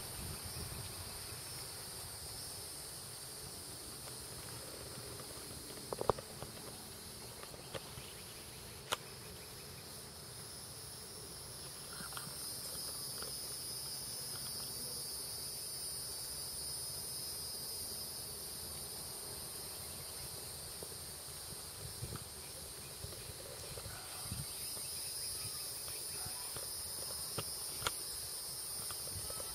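Outdoor insects chirring steadily at a high pitch, growing louder about twelve seconds in, with a few faint clicks.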